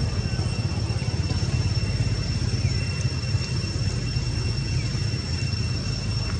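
Steady low rumble with a thin, steady high-pitched whine above it, and a few faint short chirps.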